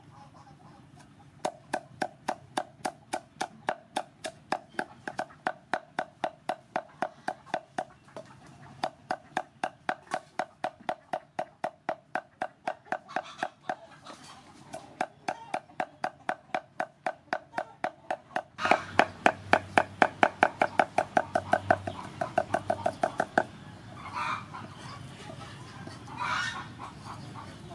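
A broad steel cleaver chopping dried red peppers on a round wooden chopping block: a steady run of sharp knocks, about three to four a second, which grows louder for its last few seconds and then stops.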